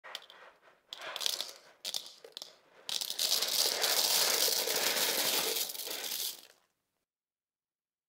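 Plastic mechanical keyboard switches poured onto a table, clattering as they land: a few separate clicks at first, then a dense rattle for about three and a half seconds that stops suddenly.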